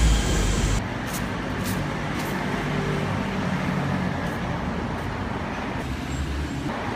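City street traffic: vehicles passing with a steady hum. A heavy rumble and hiss cuts off about a second in, and a low engine rumble swells near the end.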